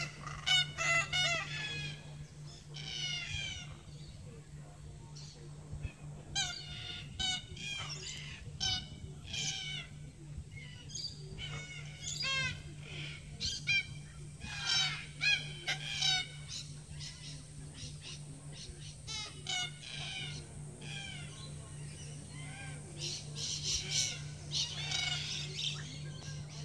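A flock of black cockatoos calling: repeated short calls that glide in pitch, coming in clusters, busiest near the end. A steady low hum runs underneath.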